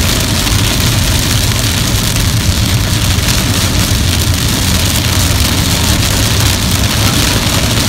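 Very heavy rain on a car's windscreen and roof, heard from inside the cabin while driving, over a steady low rumble of the car on the road.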